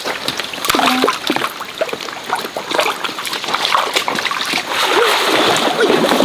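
Stream water splashing and sloshing in irregular bursts.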